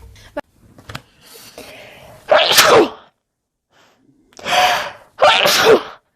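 Human sneezes: an indrawn breath, then one loud sneeze about two seconds in, and after a short silence two more sneezes in quick succession.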